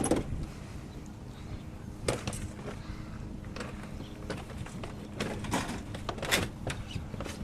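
Scattered knocks and clatters of hard objects being handled and set down, with a sharp knock at the start and a cluster of clunks past the middle, over a steady low rumble.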